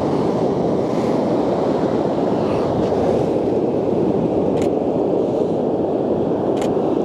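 Steady rush of sea surf breaking on a shingle beach, mixed with wind buffeting the microphone, with a few faint brief high ticks in the second half.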